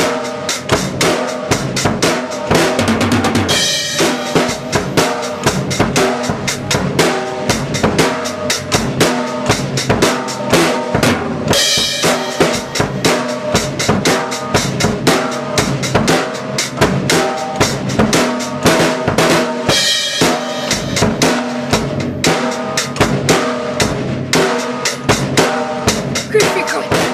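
Background music with a fast, steady drum-kit beat, bass drum and snare hitting several times a second over pitched instruments.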